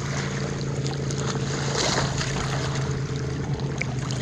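Lake water lapping and splashing at a camera held at the water's surface, with small splashes now and then over a steady low hum.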